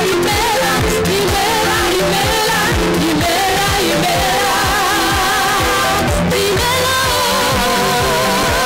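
Church praise-and-worship singing: three singers, two women and a man, singing into microphones over band accompaniment with a steady drum beat. The voices hold long notes with a wavering vibrato.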